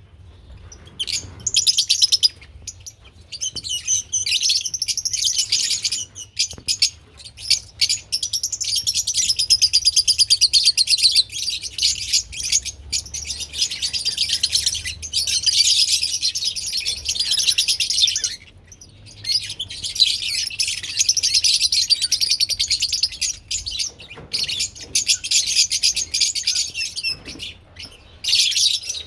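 Lovebirds chattering: rapid, high-pitched chirping in long unbroken runs, with a few short pauses.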